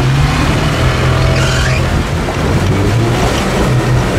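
Off-road 4x4's engine working hard, its revs rising and falling several times.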